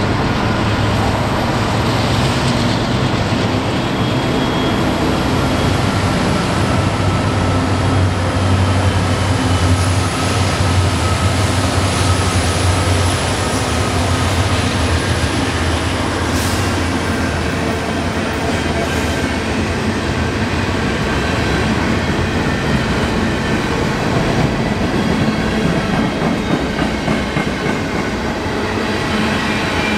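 Norfolk Southern freight train passing close by: the diesel locomotives' engines running past, loudest about eight to fourteen seconds in, then the steady rumble of loaded freight cars rolling over the rails. A faint high whine slowly falls in pitch during the first twenty seconds.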